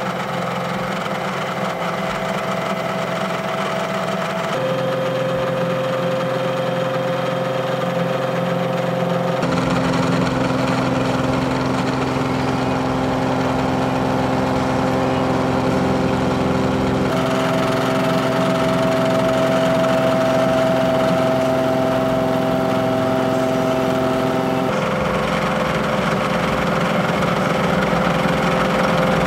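Indexable face mill on a milling machine cutting through hardened A2 tool-steel weld buildup, throwing sparks: a loud, steady machining sound carrying several fixed pitched tones. The tone pattern shifts abruptly a few times.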